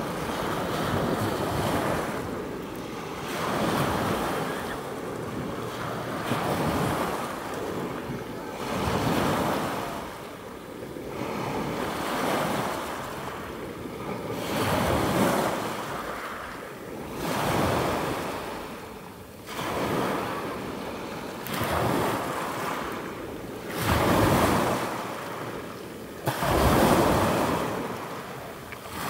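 Sea waves washing onto a shore, swelling and fading every two to three seconds. Wind buffets the microphone, most strongly twice near the end.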